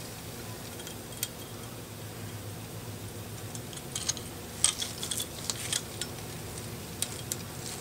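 Scattered faint, sharp clicks and light metallic taps of small airgun valve parts and hand tools being handled, a single click about a second in and a cluster about four to six seconds in.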